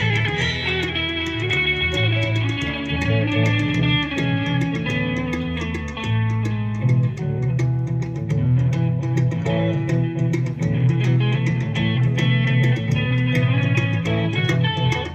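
Live band playing amplified music through an outdoor PA, led by guitar over a bass line, with a steady beat of sharp ticks.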